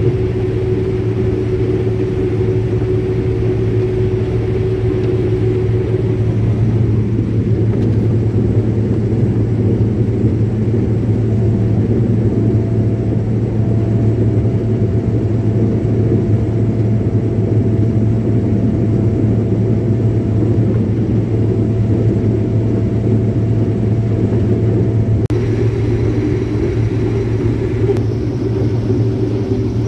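Case 2188 combine harvester working through standing maize, heard from inside the cab: a loud, even low drone of the engine and threshing machinery. A faint steady whine comes and goes over it.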